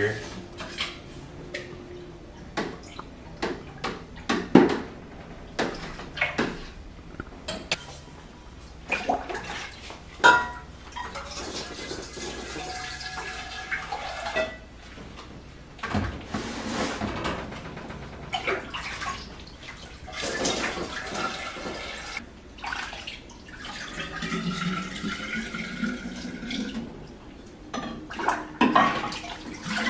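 Glass beakers and flasks clinking and knocking against each other and the sink while being washed, with stretches of sanitizer water sloshing and being poured.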